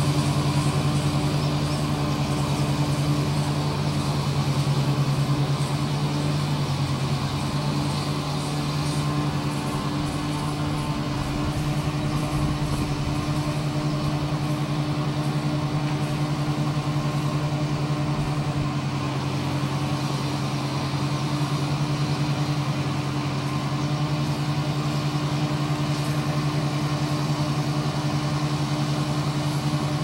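Iseki 325 rice combine harvester running steadily while harvesting, a constant engine hum with two steady low tones. The hum wavers briefly about ten seconds in.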